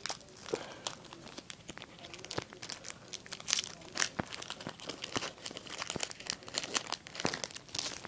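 Foil trading-card booster pack wrapper being crinkled and torn open by hand: a dense run of sharp, irregular crackles with a few louder tearing rustles.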